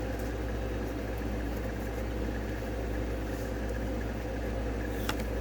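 Steady low mechanical hum, with a single sharp click about five seconds in.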